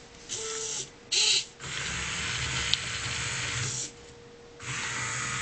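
Small electric motors of a homemade Arduino robot whirring in start-stop bursts: two short bursts, then a run of about two seconds, then another starting about a second before the end.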